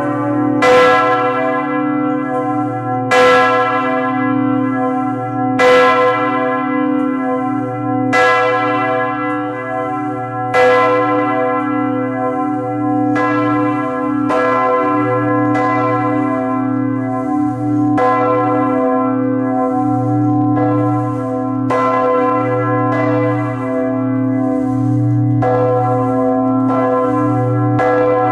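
Two heavy Lhéritier-Dubois cathedral bells swinging in full peal (volée). Their clappers strike in an uneven, interleaved rhythm, about a stroke a second, and the strongest strokes come every two and a half seconds in the first half. Each stroke rings on into a continuous low hum.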